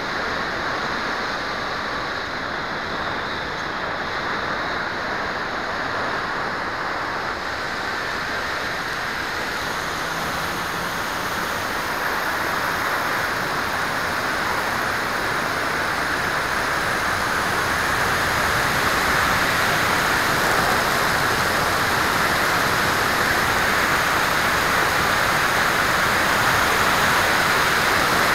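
Steady rushing wind noise over a keychain camera's microphone in flight, slowly growing louder.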